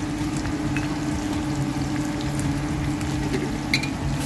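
Sliced onions frying in oil in a frying pan on a gas hob, a steady gentle sizzle with a few faint crackles near the end, over a constant low hum. The onions are being fried for beresta, crisp fried onions.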